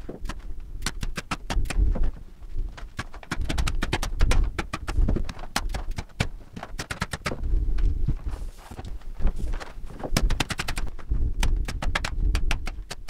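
Bursts of rapid sharp clicks and rattles, several to the second, over low knocks and thumps, from a man working overhead on a ladder among the roof rafters.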